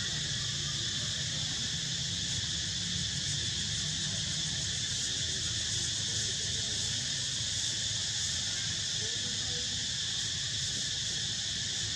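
Steady high-pitched chorus of insects droning without a break, over a low rumble.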